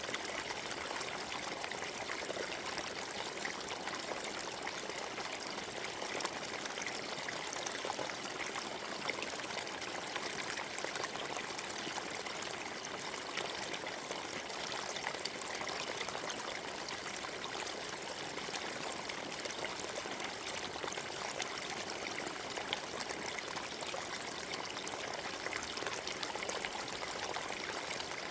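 A small forest stream (creek) running steadily, water trickling and splashing over stones.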